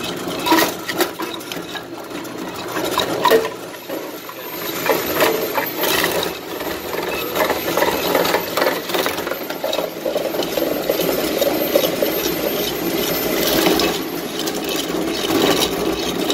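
Modified Precious Plastic shredder, driven by a 2-horsepower electric motor through a 25-to-1 gearbox, running and chewing up plastic: its rotating cutter blades crunch and crack the plastic into small flakes. A steady hum runs under many sharp, irregular cracks.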